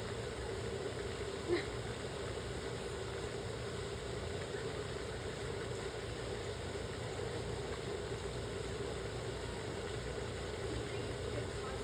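Steady mechanical hum, like an idling engine, with one short click about a second and a half in.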